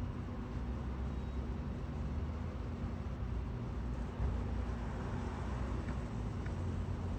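Steady low rumble of distant road traffic, with one dull thump about four seconds in.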